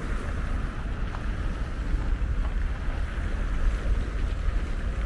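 Steady street noise of traffic on the road alongside, with wind buffeting the microphone as a deep rumble.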